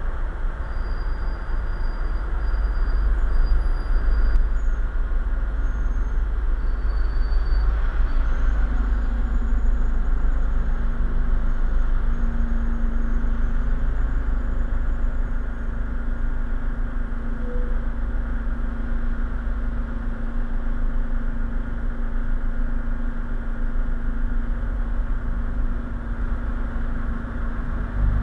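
Steady low rumble of a running vehicle, heard muffled through cloth, with a steady low hum coming in about nine seconds in.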